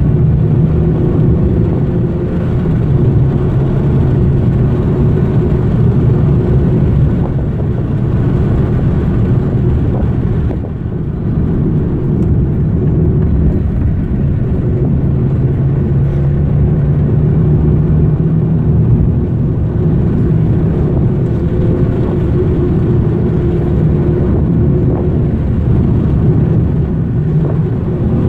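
Mazda 323 1.3-litre four-cylinder petrol engine pulling under way, heard from inside the cabin along with tyre and road rumble. The engine note holds fairly steady, its pitch drifting up and down with the revs, and dips briefly about ten seconds in.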